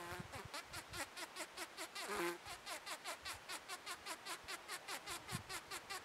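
Bombus rubicundus bumblebee giving a short wing buzz about two seconds in, over a steady background of rapid pulsing chirps, about five a second.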